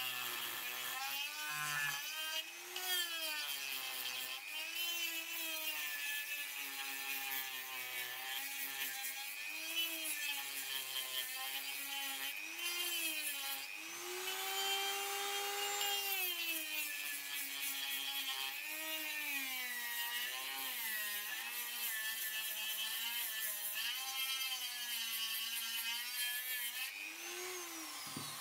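Dremel rotary tool running at high speed with a 3D-printed helical sanding drum sanding a block of wood: a high motor whine over the rasp of the sanding band. The pitch rises and falls over and over as the drum is pressed into the wood and eased off. Near the end the pitch sweeps down.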